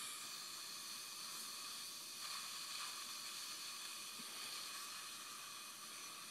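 Dental suction running with a steady hiss, slightly fuller from about two seconds in.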